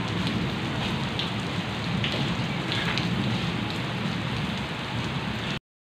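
Steady rain falling on a wet, flat yard, an even hiss with the odd nearer drop ticking; the sound cuts off abruptly near the end.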